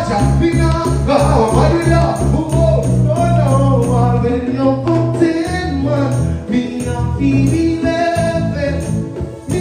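A song playing: a man singing over a bass line, held keyboard notes and a steady beat.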